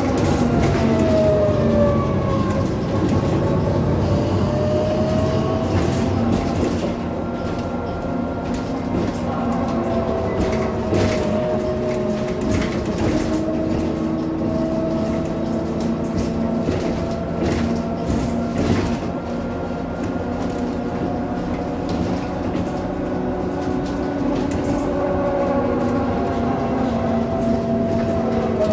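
Iveco Urbanway 12 city bus heard from inside the passenger cabin while driving: the engine's drone falls in pitch over the first few seconds, then rises and settles as the bus changes speed. Frequent clicks and rattles come from the interior fittings.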